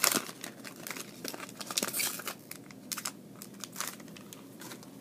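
Foil trading-card pack wrapper crinkling as it is torn open and handled, loudest in the first two seconds or so, followed by quieter rustling and light clicks as the cards are handled.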